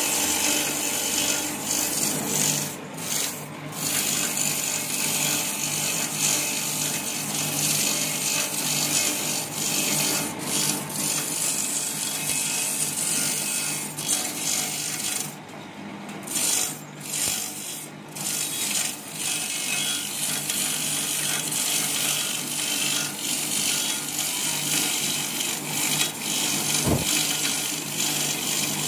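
Skewer-sharpening machine running: a motor-driven spinning disc grinds the tips of satay skewers as they feed through, a steady rasping grind over a motor hum. There are a few short lulls partway through.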